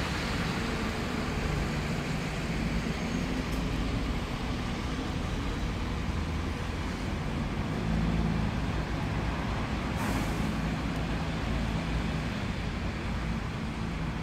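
Single-deck buses pulling away and turning through a junction on a wet road: diesel engine running, growing louder as the second bus passes, with tyre hiss on wet tarmac and a brief high hiss about ten seconds in.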